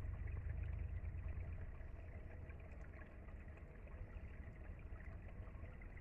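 Steady outdoor background noise with a deep low rumble, slowly easing a little in level, and no distinct event.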